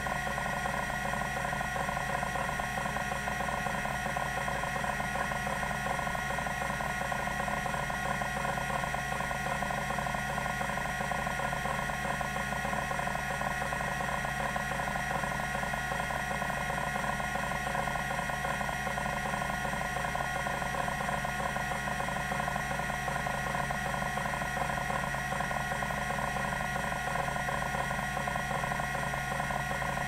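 TEAC SD-510 10 MB MFM hard drive's band stepper actuator seeking rapidly and without pause during a random-access test, a fast, even buzzing chatter over a steady high tone.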